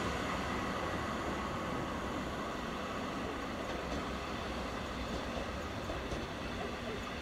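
Electric railcar ETi 410 running slowly along the track: a steady, even rolling noise from the approaching train.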